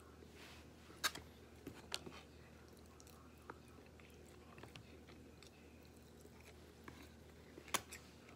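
A person chewing food, with a few sharp clicks, the loudest about a second in, two seconds in, and near the end.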